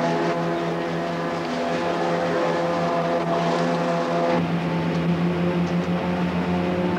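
Steady drone of a sea-rescue cruiser's engines heard on board, a hum holding one unchanging pitch; its tone shifts slightly and gains a little low rumble about four seconds in.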